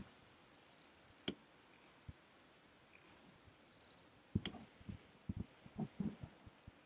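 A few faint handling sounds from a fishing rod and spinning reel in a plastic kayak's rod holder: two sharp clicks about a second in and about four seconds in, then a run of soft low knocks.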